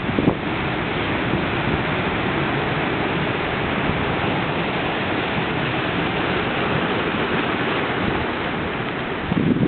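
Storm surf breaking and washing in foam over boulders and a cobble beach: a dense, steady rush of water. Near the end, wind gusts start buffeting the microphone.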